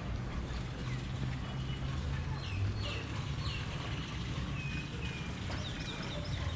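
Birds chirping in two brief groups of short, falling calls, over a steady low hum.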